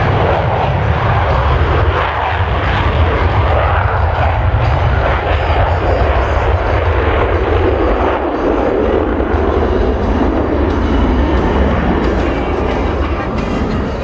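Jet noise from Blue Angels Boeing F/A-18 Super Hornets flying overhead: a loud, steady rumbling roar whose pitch slowly lowers as the jets move away.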